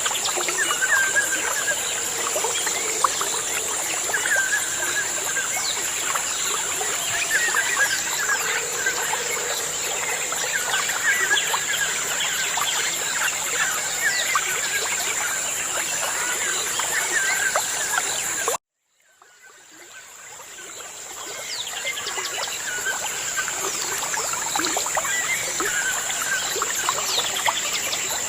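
Many birds chirping and calling over a steady high-pitched tone. About two-thirds of the way through, the sound cuts out suddenly, then fades back in over a few seconds.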